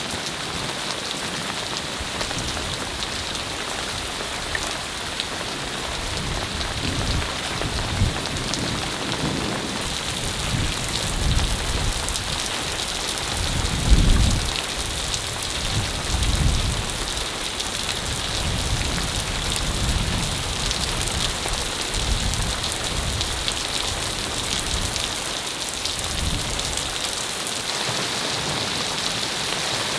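Hailstorm: hail and rain pelting down in a steady dense hiss, with irregular low rumbles that swell through the middle and are loudest about halfway through.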